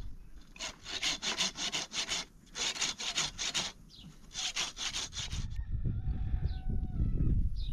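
Hand saw cutting a dry branch: three runs of quick back-and-forth strokes, about five a second, with short pauses between. Near the end the strokes stop and a low rumble takes over.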